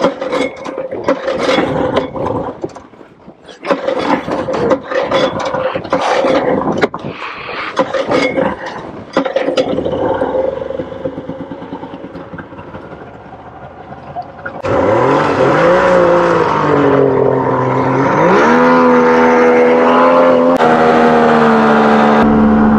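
Small outboard motor on an inflatable boat, ticking over under clatter and knocks at first. About fifteen seconds in it revs up, dips briefly, then climbs to a steady high-speed run as the boat gets up on the plane.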